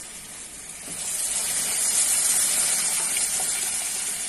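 Hot water poured into an aluminium stockpot of sautéed chicken and mung beans, gushing and splashing in about a second in and running on steadily, loudest around two seconds.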